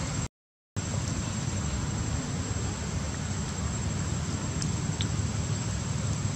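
Steady low rumble of outdoor background noise with a thin, steady high-pitched whine over it, cutting out completely for about half a second near the start.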